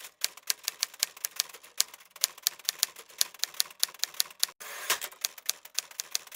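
Typewriter keys clacking in a quick, uneven run of about five strikes a second, with a brief pause about four and a half seconds in.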